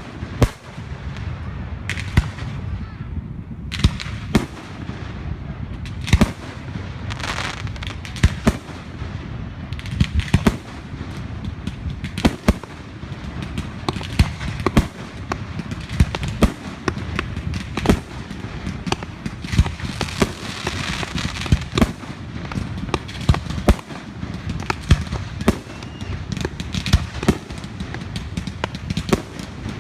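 Fireworks going off in quick, irregular succession: many sharp bangs, one every half second to a second, with a stretch of crackling about two-thirds of the way through.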